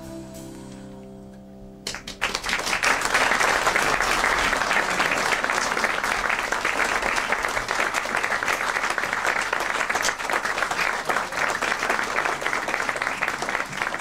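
The band's last held notes die away, and about two seconds in an audience breaks into steady applause that carries on.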